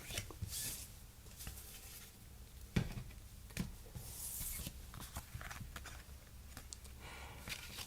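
Trading cards and their packaging handled close to the microphone: scattered soft taps, clicks and rustles, with a sharp click a little under three seconds in and a short hissy rustle about four seconds in.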